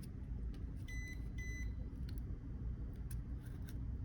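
Two short electronic beeps about half a second apart, over a few faint clicks from a pick working along the phone's edge and a steady low background hum.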